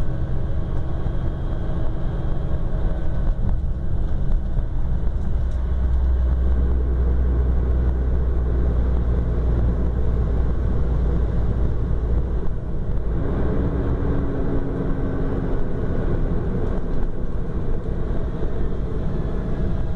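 Mercedes-Benz O-500RS coach's diesel engine running under way, heard on board as a steady low drone mixed with road noise. About two-thirds of the way through the sound dips briefly, then settles at a different pitch.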